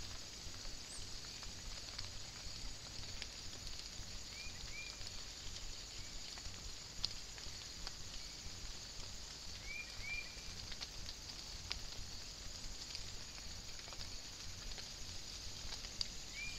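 Faint night-time woodland ambience picked up by a trail camera: a steady high hiss with scattered light ticks, and short high chirps that come in a pair about four seconds in, another pair about ten seconds in, and once near the end.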